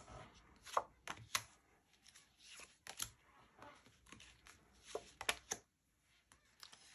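Tarot and oracle cards being handled: faint, irregular flicks and slaps as cards are drawn from the decks and laid down on the stacks, with three quick ones about five seconds in.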